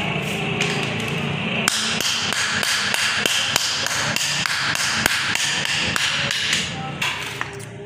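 Hand hammer striking a bundle of steel bars held in tongs on a steel block anvil: rapid, regular blows at about three to four a second that stop about seven seconds in.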